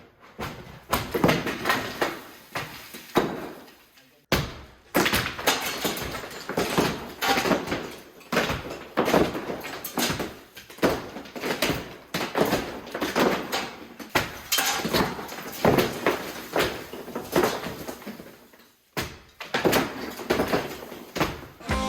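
Plaster-and-lath ceiling being stomped out from the attic above: a run of irregular heavy thuds and crashes as plaster and lath break away and fall. It stops briefly about four seconds in and again near the end.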